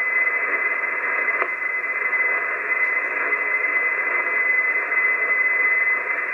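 HF transceiver receiving an empty channel on 6516 kHz: steady static hiss through the receiver, with a steady high-pitched whistle running through it, as no station answers the call.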